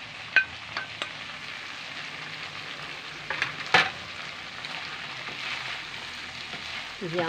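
Meat and vegetables sizzling as they stir-fry in a metal wok, turned with a wooden spatula. The spatula clicks against the wok a few times near the start and clatters more loudly about three and a half seconds in.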